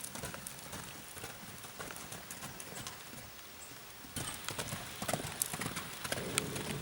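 A rapid, irregular series of sharp clicks and knocks, several a second. They thin out and grow quieter in the middle, then come thicker and louder from about four seconds in.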